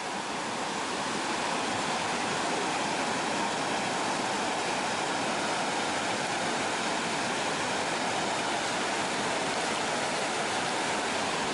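Steady rush of flowing creek water, swelling a little over the first couple of seconds and then holding even.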